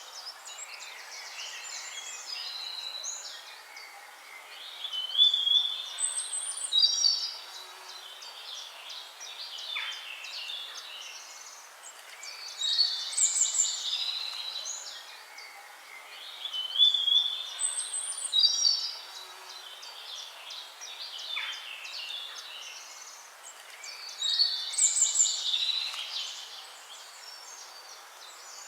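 Songbirds singing: bursts of high chirps and trills over a steady hiss, the loudest passages coming every few seconds in a pattern that repeats about every twelve seconds.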